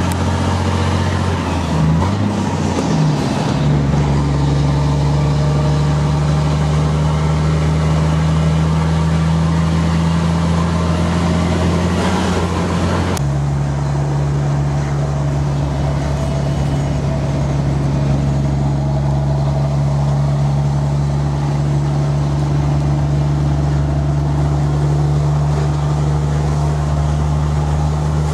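Volvo FH12 truck's six-cylinder diesel engine running through an open, free-flowing exhaust, a steady low drone. Its note wavers about two to four seconds in and changes abruptly about thirteen seconds in.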